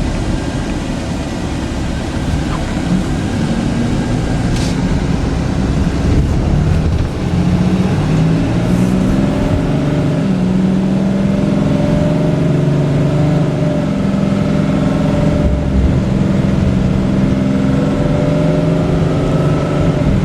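2009 Dodge Ram 5500's 6.7-litre Cummins diesel pulling the truck along, heard from inside the cab with road noise. The engine note climbs a few times as the truck picks up speed, then holds steady.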